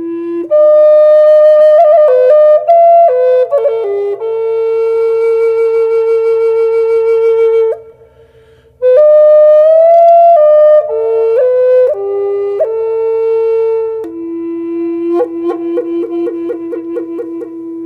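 Background music: a solo flute-like melody of held and stepping notes, pausing briefly about halfway through and ending on a long note with a pulsing vibrato.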